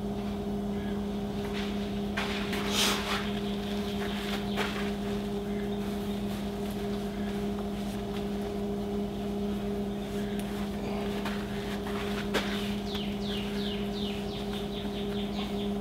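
A steady mechanical hum with an even low pulse, like a motor running, with a run of short high chirps near the end.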